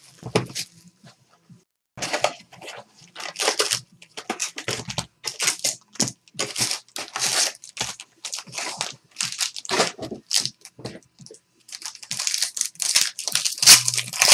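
Plastic wrapping being torn and crinkled in irregular crackly bursts: cellophane shrink wrap stripped off a box of trading cards, then foil card packs handled, with a pack being torn open near the end.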